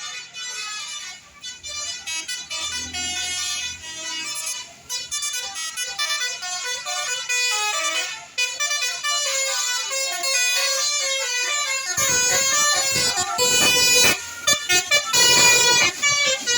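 Bus telolet horn, a multi-tone air horn, playing a quick stepping melody of short notes. About twelve seconds in, the noise of the bus passing close swells in beneath it.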